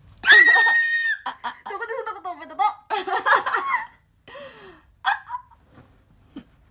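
Two young women laughing: a high-pitched squeal held for about a second opens it, then giggling bursts that die down after about four seconds into breathy chuckles.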